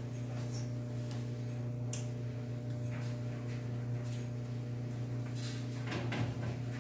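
Bundt cake pan being set on the rack of an open wall oven, with a sharp click about two seconds in and light knocks near the end, over a steady low hum.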